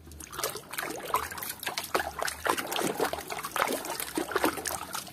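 Water trickling and splashing in an uneven patter, as a muddy toy animal is rinsed clean.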